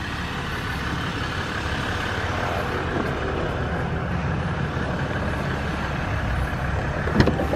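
Ram 1500 EcoDiesel's 3.0-litre V6 turbodiesel idling steadily, with a couple of sharp clicks near the end.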